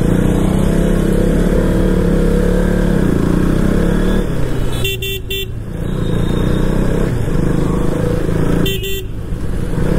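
Motorcycle engine running steadily on the move in road traffic, with a vehicle horn giving two quick toots about five seconds in and one more near the end.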